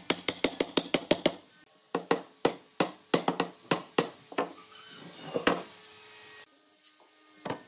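A wooden mallet knocks a wooden rail down onto a frame-and-panel assembly to seat the joints. It begins with a fast run of about ten sharp blows, some seven a second, then gives more spaced knocks in groups, goes quiet about two thirds of the way through, and knocks once more near the end.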